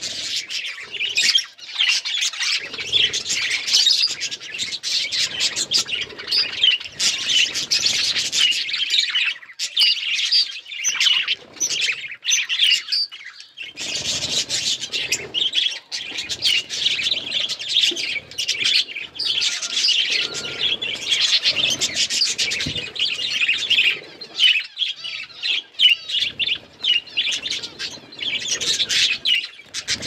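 Several budgerigars chirping and chattering busily, with a busy stream of quick high chirps that thins out for a few seconds near the middle.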